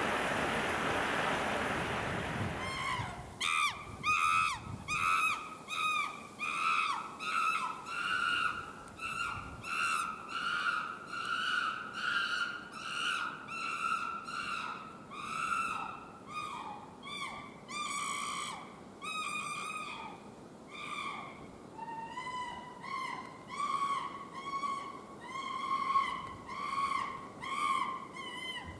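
A steady rushing noise for the first few seconds, then an animal calling over and over, about two short pitched calls a second with a downward hook, the pitch drifting up and down a little across the series.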